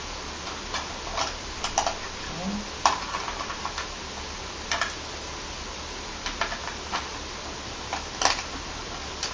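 Irregular light clicks and knocks of a toy RC helicopter's plastic remote control and parts being handled, over a steady background hiss.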